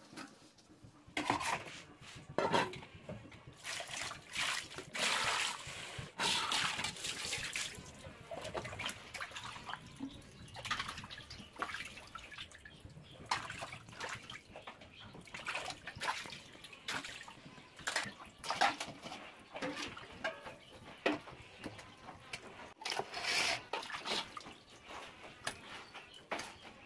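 Water splashing and sloshing in a stainless steel bowl as raw chicken pieces are washed by hand, in irregular splashes and drips.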